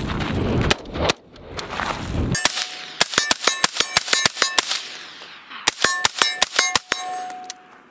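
Strings of rapid semi-automatic rifle shots from an AR-15-type rifle chambered in .223 Wylde, each hit answered by a ringing clang from steel targets, several shots a second. A low rushing rumble fills the first two seconds.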